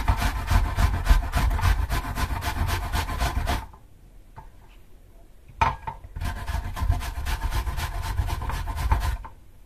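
Peeled apples being grated on the coarse side of a box grater: fast, even rasping strokes. The strokes stop a little over a third of the way through, a single knock comes about two seconds later, then the strokes resume until shortly before the end.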